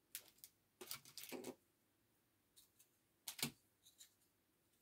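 Small clear acrylic earring charms clicking against one another and the tabletop as they are handled: a few scattered light taps, the loudest about three and a half seconds in.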